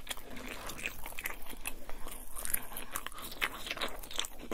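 Chicken quesadilla being chewed up close: a steady run of irregular short mouth clicks and crunches.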